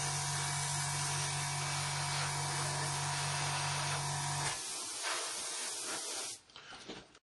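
Airbrush hissing steadily as it sprays over a plastic model kit, with a steady low hum underneath that stops about four and a half seconds in. The hiss fades out near the end.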